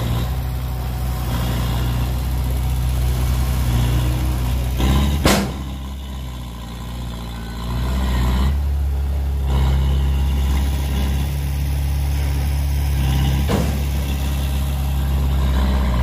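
Dump truck's diesel engine running steadily while the tipped bed is lowered, dropping off briefly after a sharp bang about five seconds in, with a lighter bang near the end.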